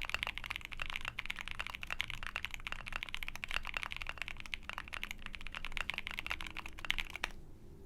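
Fast typing on an Ai03 Vega mechanical keyboard with a POM plate, IFK keycaps and linear frankenswitches (OP Black housings, Husky stems, 63 g slow springs, lubed with Krytox 205g0): a rapid, continuous run of keystrokes that stops about seven seconds in.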